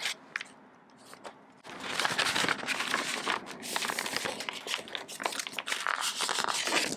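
Paper packaging crinkling and rustling as hands open and handle a paper envelope, starting after about a second and a half of near quiet and going on as a continuous crackle.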